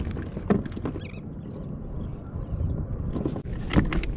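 Low rumbling wind and water noise with irregular knocks and taps, as of gear being handled on a plastic fishing kayak. A few faint high chirps come about a second in.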